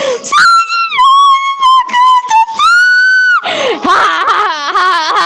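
A young woman singing in a high, strained, near-screaming voice: several long held notes, then a shaky, wavering stretch from about three and a half seconds in.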